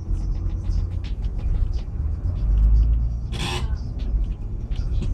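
City bus under way, heard from inside: a steady low rumble from the engine and road, with small rattles and ticks from the bodywork, and a short hiss about three and a half seconds in.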